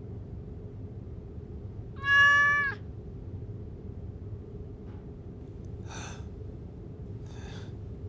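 A house cat meows once, a single drawn-out meow lasting under a second, over a low steady background hum. Two faint soft rushes of noise follow later.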